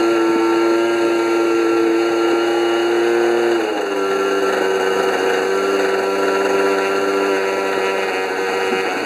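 Model airplane engine running steadily at a constant speed, its pitch stepping up slightly about four seconds in and shifting again near the end.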